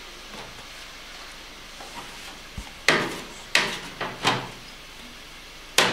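Kitchen handling sounds as a cabbage and utensils are moved about on the counter: after almost three quiet seconds, a handful of short knocks and scrapes about half a second apart, and a sharper knock just before the end.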